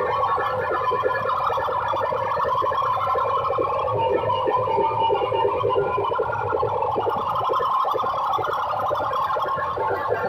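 Loud music blaring from banks of horn loudspeakers in a DJ sound-system competition, harsh and concentrated in the midrange with little deep bass, with held, siren-like tones over a fast pulsing beat.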